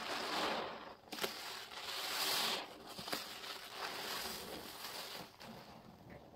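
A paste-soaked sponge squeezed and released by gloved hands in a basin of sudsy water, rinsing it out with dish soap. The wet squeezing and foam come in several waves, the loudest about two seconds in.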